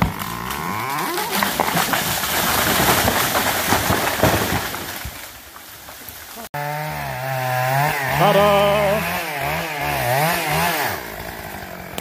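Chainsaw cutting into a large walnut trunk, the engine working under load. After a break, the saw is revved up and down several times in quick throttle blips, then settles back toward idle near the end.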